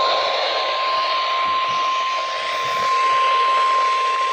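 NOAA Weather Radio warning alarm tone, a steady single 1050 Hz tone sounding for the weekly test, heard over a haze of radio reception static.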